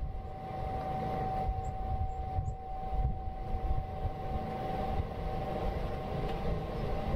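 Steady low rumble with a constant mid-pitched hum running through it.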